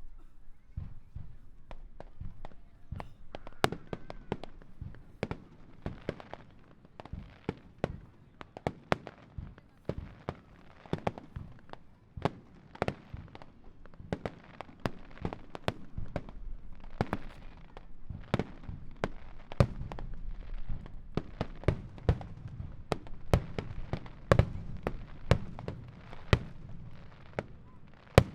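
Fireworks shells bursting in a rapid, uneven barrage, several sharp bangs a second over a low rumble, with one of the loudest bangs right at the end.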